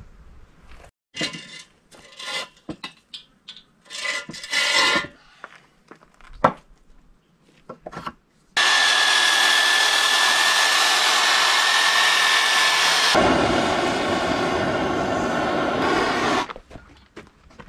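Short scraping and rubbing strokes, then an electric power tool runs with a steady whine for about eight seconds. About halfway through, its sound turns deeper and fuller, and it stops near the end, followed by more scraping.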